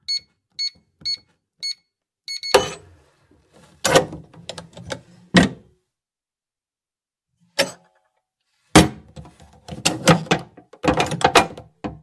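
Keypad of an electronic steel safe beeping four times, about half a second apart, as a code is entered. About two and a half seconds in comes a loud metallic clunk of the lock bolt releasing, followed by a series of metal clunks and rattles from the latch and the safe door being worked open and shut.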